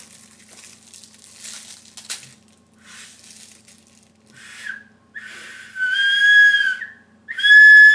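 Survival whistle on a combination compass-whistle being blown. At first there are only faint breathy puffs. About four and a half seconds in comes a short toot, then a long, steady, high-pitched blast, and near the end a second loud blast begins.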